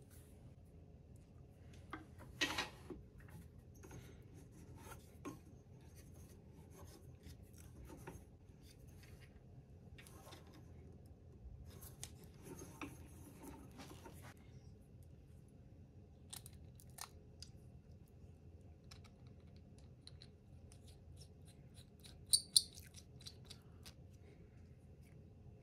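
Small clicks, taps and rubbing of brass fountain-pen kit parts being handled and pressed together on a wood lathe, over a faint steady hum. A louder scraping click comes about two and a half seconds in, and two sharp clicks close together come near the end.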